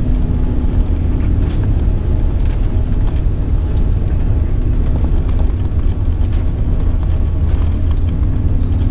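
Jet airliner's turbofan engines at takeoff power, heard from inside the passenger cabin: a steady, deep rumble with a held hum, and scattered light clicks and rattles.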